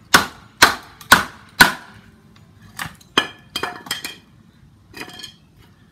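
A piece of firewood used as a baton strikes plastic felling wedges, driving them into a knotty red oak log to split it. Four hard knocks come about two a second, then a run of lighter, more spaced knocks from about three seconds in.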